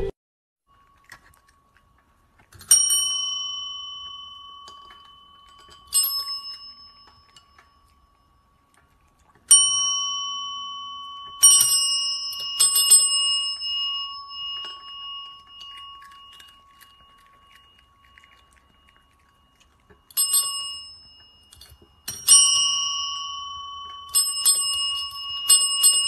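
Chrome service bells (desk bells) rung by cats pressing them with their paws. Single dings every few seconds, each ringing out and fading slowly, then several dings in quick succession near the end.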